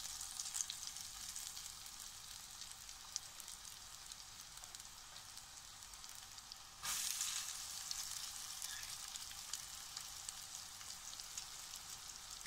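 Breaded zucchini cutlets sizzling as they shallow-fry in oil in a pan, a steady hiss with fine crackles. About seven seconds in the sizzle jumps louder as a second cutlet goes into the oil, then slowly settles.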